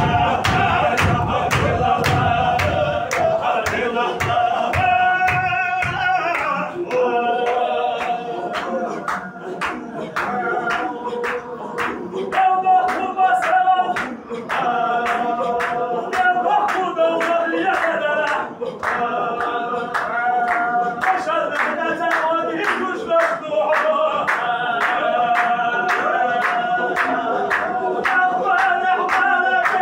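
A group of men singing a zikr chant together in unison over a steady beat of sharp claps. Heavy stamping thumps run under it for the first six seconds and then stop.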